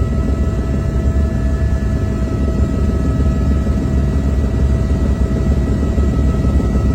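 Helicopter in flight: a steady, loud low drone from the rotor with a few constant whine tones from the turbine above it.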